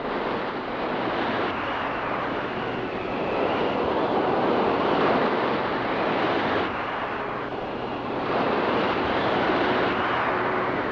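Storm waves breaking against a seawall, with wind: a continuous rushing noise that swells twice, about four and nine seconds in.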